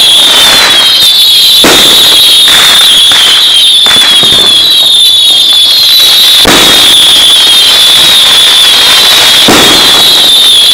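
Consumer fireworks going off: several sharp bangs and crackles a couple of seconds apart as rockets are launched and burst. A steady high-pitched shrill runs underneath.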